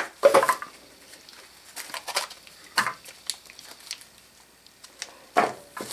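Plastic bags and bubble wrap crinkling and rustling in irregular short bursts as small tool parts are handled and unwrapped by hand.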